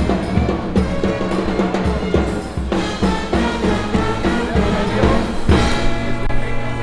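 Music with a drum beat: bass drum and snare under sustained pitched instruments.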